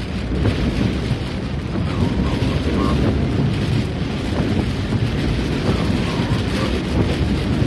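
Steady low rumble of a car driving on a wet road in rain, heard inside the cabin: tyre and engine noise mixed with rain on the windshield.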